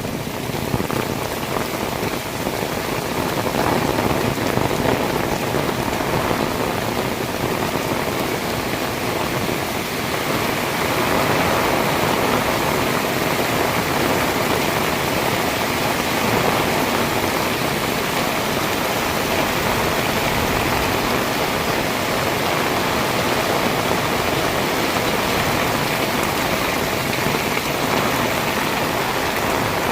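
Heavy rain pouring steadily, a dense, even hiss of drops hitting the ground and surfaces.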